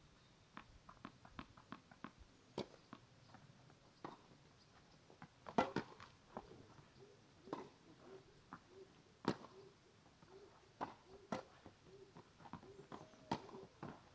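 Tennis ball knocks on a hard court: sharp, irregular clicks of the ball bouncing and being struck by racket strings, with a few louder strikes, and the scuff of players' shoes. A faint short tone repeats about twice a second through the second half.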